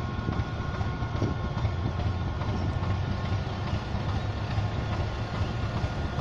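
ChME3 diesel shunting locomotive's engine running steadily in a low rumble as it pulls a freight train slowly toward the listener.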